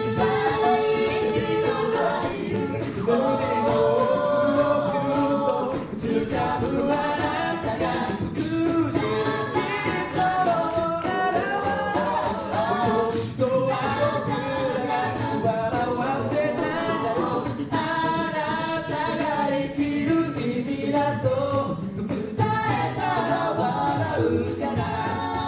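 Six-voice a cappella group singing live into microphones: harmonised voices with a steady beat of sharp vocal-percussion hits underneath.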